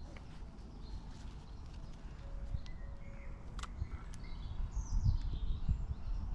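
Small birds chirping outdoors, with a high call that slides down in pitch about five seconds in, over a low rumble.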